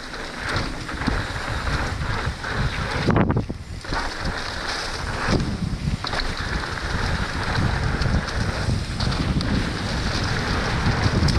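Wind rushing over an action camera's microphone as a Trek Slash 9.8 mountain bike rides fast down a dirt trail, with tyre roar and a steady run of bumps and rattles from the bike over rough ground.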